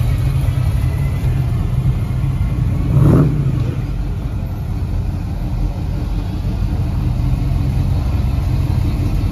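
Classic cars' engines rumbling at low speed as they cruise past, with one car's engine revving briefly about three seconds in.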